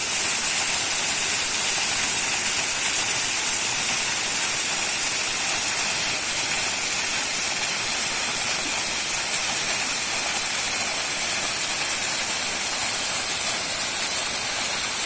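Rushing water, a steady hiss.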